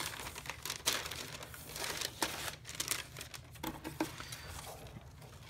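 White tissue wrapping paper in a shoebox crinkling and rustling as hands handle it, with irregular crackles and rustles.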